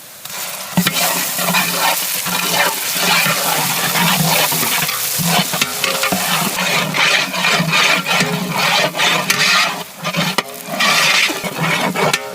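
Ground chilli paste frying in hot coconut oil with onions, a dense crackling sizzle as it is stirred, with louder bursts of sizzling about 7, 9 and 11 seconds in.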